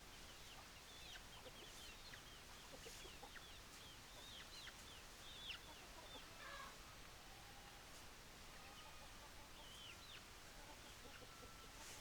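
Chickens calling: many short, high, overlapping calls that bend in pitch, fainter and sparser in the second half, with a few light clicks.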